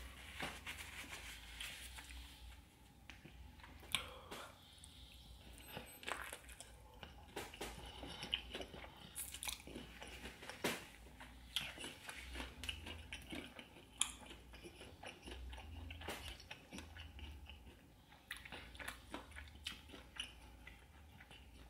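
Close-up chewing and biting of crispy fried chicken coated in cheese sauce, with irregular crunches and clicks. The sharpest crunches come about 4 and 14 seconds in.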